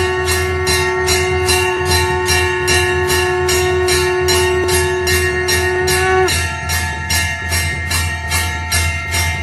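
Temple bells rung rapidly and evenly in aarti, about four strikes a second, with their ringing tones held over a steady low hum. A held pitched tone underneath cuts off about six seconds in.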